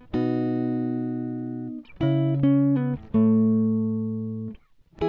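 Instrumental background music: sustained chords, each left to ring and fade, changing every second or so, with a brief pause near the end.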